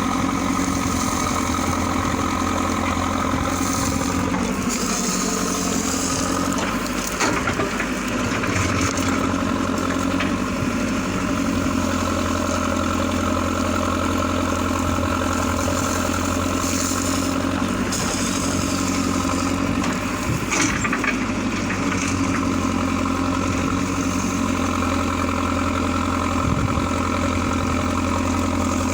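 Mahindra Arjun 605 Novo tractor's four-cylinder diesel engine running steadily. Its note shifts briefly twice while the loader backhoe works.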